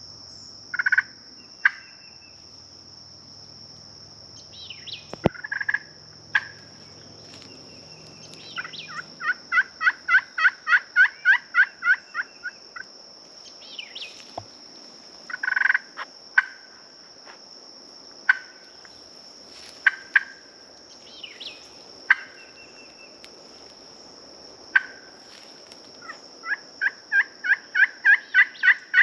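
Wild turkey yelping: two long runs of evenly spaced notes, about five a second, with scattered single louder notes between them. A steady high insect hum runs underneath.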